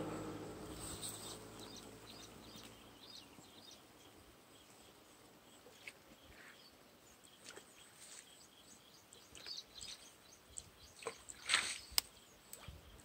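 Faint outdoor quiet with scattered short bird chirps, while a low engine hum fades away over the first couple of seconds. A few louder chirps and a single sharp click come near the end.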